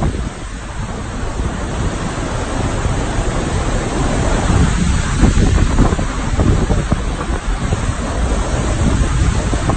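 Hurricane-force wind blowing hard and buffeting the phone's microphone in uneven gusts.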